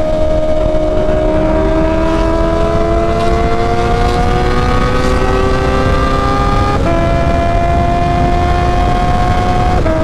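Honda CB650R's inline-four engine pulling under throttle at highway speed, its pitch climbing slowly, then dropping sharply about seven seconds in at an upshift and climbing again. Wind rushes on the helmet microphone throughout.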